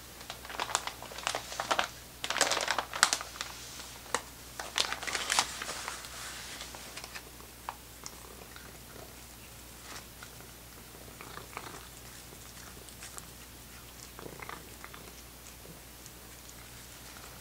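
Plastic bag of dried bonito flakes crinkling loudly in bursts as it is handled and opened, for about six seconds. It then goes quieter, with faint scattered clicks as a cat eats flakes from a hand.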